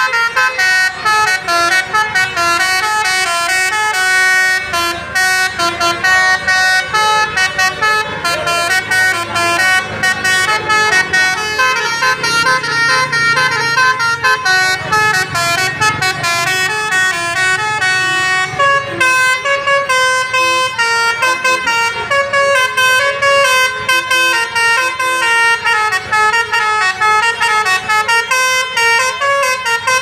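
Bus basuri horn, a multi-trumpet 'telolet' horn, playing a continuous tune of quick stepped notes. A low rumble sits under it for several seconds in the middle.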